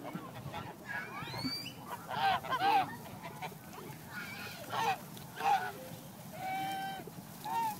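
Geese honking: a series of short calls, a loud pair about two seconds in, and a longer held honk near the end.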